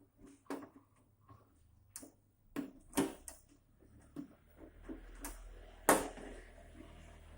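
Scattered sharp clicks and knocks of hand tools and metal parts being handled while a power amplifier's case is opened on a workbench, the loudest knock about six seconds in. A low steady hum comes in about halfway through.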